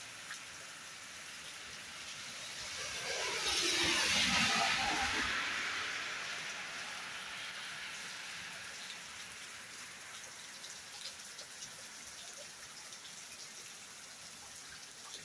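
Heavy rain pouring down, a steady hiss. A louder rushing swell builds about three seconds in, peaks around four seconds and fades away.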